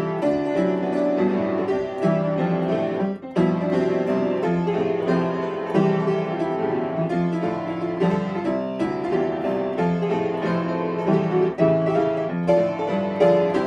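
Upright piano played with both hands: a cheerful arrangement of animal songs, melody over chords, with a brief break in the sound about three seconds in.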